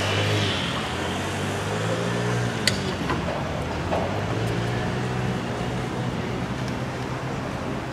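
A motor engine running steadily close by, with a single sharp metallic clank a little under three seconds in.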